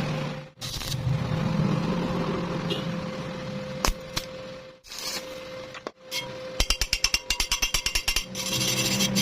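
Tool work on metal over a steady hum: a single sharp knock, then a quick run of hard taps, about seven a second, lasting under two seconds.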